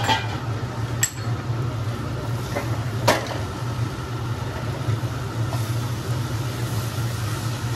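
A steady low hum with a few sharp metal clinks of cookware over it: one at the start, one about a second in and a louder one about three seconds in, typical of a lid or spoon against a steel pan.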